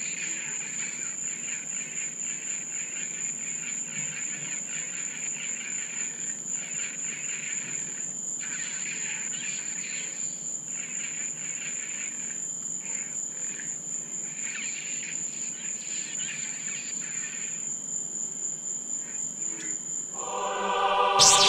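Evening insect chorus: a steady high cricket trill with an uneven, pulsing layer of insect chirring beneath it. Near the end, loud choral music comes in.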